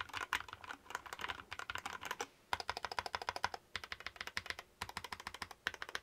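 Fast typing on an AJAZZ AC064 compact mechanical keyboard with an aluminium alloy case, the key switches clacking in quick runs with a few short pauses.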